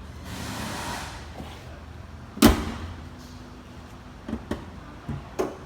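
Car hood slammed shut once about two and a half seconds in, a sharp bang with a short ring, followed by a few lighter clicks and knocks near the end. Just before the bang comes a brief soft rushing sound.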